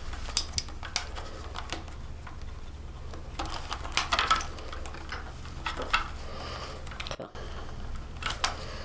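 Small plastic clicks and rustling as white bullet-style wiring connectors and their wires are handled and pushed together, connecting the indicator wiring.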